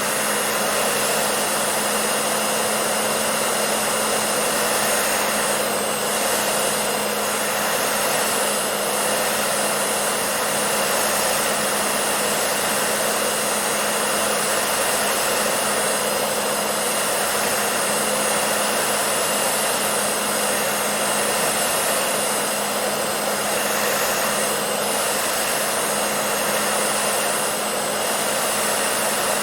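Electric hair dryer running continuously: a steady rush of blown air over a constant motor hum.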